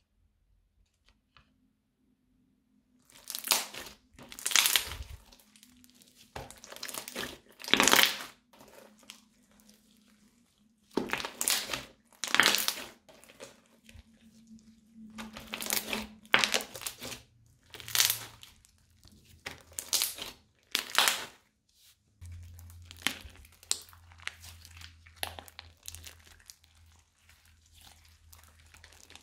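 Thick crunchy slime crackling and crunching as hands squeeze and knead it, in a run of separate bursts a second or two apart that begin a few seconds in and grow softer near the end.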